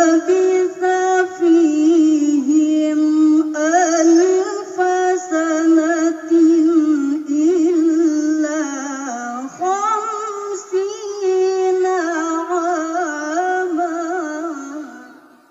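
A woman reciting the Quran in the melodic tilawah style, singing a long phrase with rapid vocal ornaments and turns. The phrase trails off near the end.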